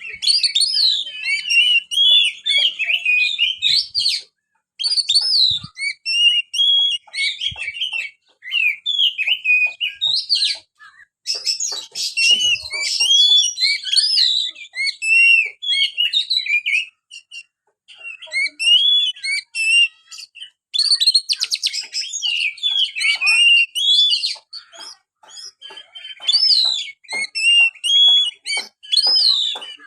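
Oriental magpie-robin (kacer) singing a long, varied run of rapid whistles and chirps in phrases, with short pauses between them.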